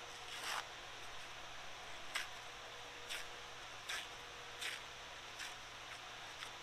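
Soft rustles and light scrapes from a paper towel and a steel pistol slide being handled and fitted into a milling-machine vise: several brief ones roughly a second apart, over a faint steady hum.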